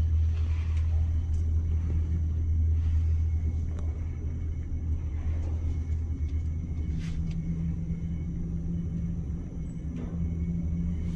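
Otis Spec Revo passenger elevator car riding up between floors: a steady low hum and rumble of the travelling car, its tone shifting slightly higher about two-thirds of the way through.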